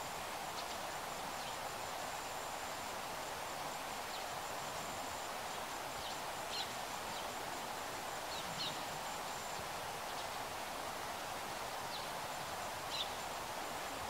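Steady outdoor background noise with a faint thin high tone running through it. A few short, high bird chirps come about six and a half, eight and a half and thirteen seconds in.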